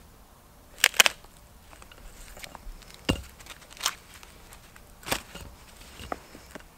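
A Husqvarna Camping hatchet wedged into a thin branch, struck down with the stick onto a wooden stump to split it: a series of sharp wooden knocks, a quick double about a second in, then single strikes roughly a second apart, the last one lighter as the split piece comes free.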